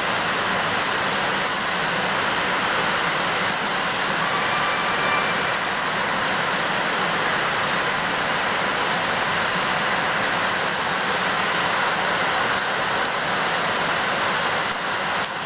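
Rain falling steadily, an even, unbroken hiss of rainfall.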